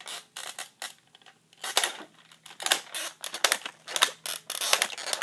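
Irregular plastic clicks and knocks from a Jurassic World Tyrannosaurus rex toy being handled close to the microphone, getting busier toward the end. No roar comes: the toy's battery is dead.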